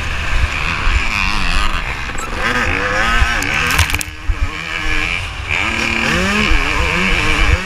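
Yamaha YZ250 two-stroke motocross engine revving up and down as the rider works the throttle around the track, with wind buffeting the microphone. The engine note drops briefly about four seconds in as the throttle closes, then climbs again.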